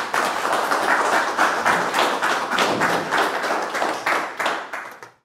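A small group of people applauding, separate claps audible, dying away just before the end.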